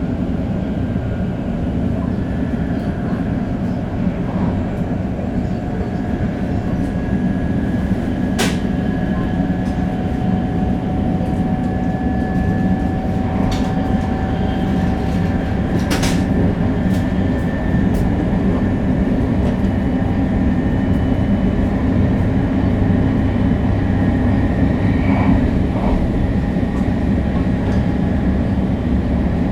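Shinkansen 500 series train running at speed: a steady, heavy rumble of wheels and running gear, with a faint tone slowly rising in pitch. Two sharp clicks come about eight and sixteen seconds in.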